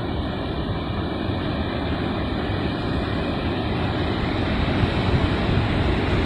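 Steady roar of heavy surf mixed with wind buffeting the microphone, swelling slightly near the end.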